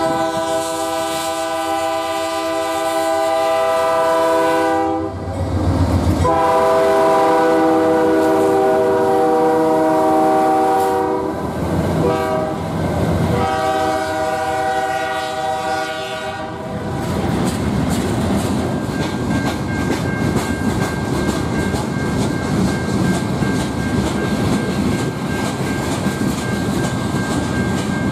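Diesel freight locomotive's air horn sounding a series of long blasts. After that the train's freight cars roll past with wheels clacking over the rail joints and a thin, steady high squeal.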